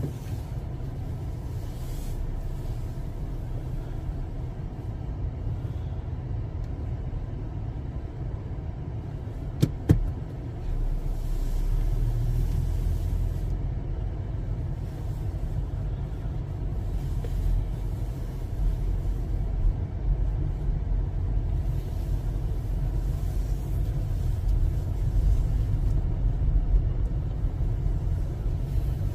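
Low, steady rumble of a car's engine and tyres heard from inside the cabin while driving, with one sharp click a little under ten seconds in, after which the rumble grows louder.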